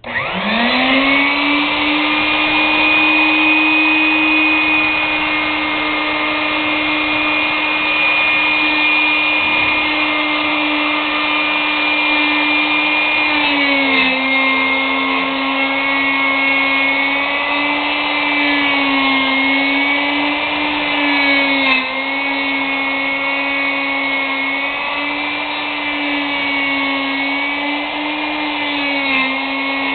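Router motor of a vintage Stanley lock mortiser starting up and spinning up to speed within about a second, then running with a steady whine. From about halfway on, its pitch dips and wobbles again and again as the cutter takes load, cutting the mortise on its back-and-forth passes.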